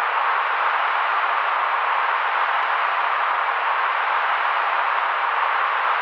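Steady synthetic white noise: an even, unchanging hiss centred in the midrange, with little bass and little treble.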